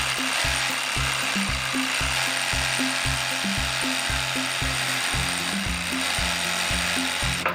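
Stanley 18-volt lithium battery reciprocating saw running steadily as it cuts wood, stopping suddenly near the end. Background music with a steady bass beat plays underneath.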